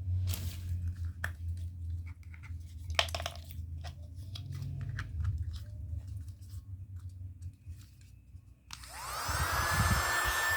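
Scattered plastic clicks and crackles as the USB mini vacuum cleaner is handled. Near the end its small motor switches on, with a whine that rises quickly and then runs steady.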